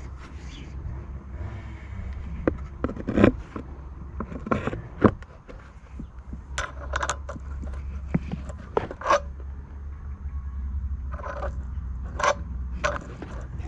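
Irregular clicks, light clinks and scrapes of small parts and the plastic starter housing being handled during reassembly of a leaf blower's pull starter, over a low steady hum.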